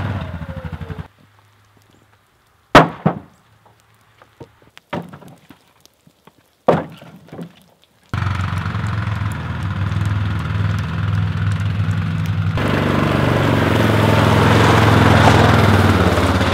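Utility ATV engine running for about a second, then a few loud wooden knocks as split firewood logs are dropped into a wooden trailer, the first the loudest. Just past the halfway point the ATV engine runs again, and it grows louder near the end as it tows the loaded trailer across the snow.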